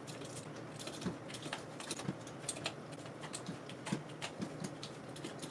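Faint, irregular clicking of computer keyboard typing, a few keystrokes a second.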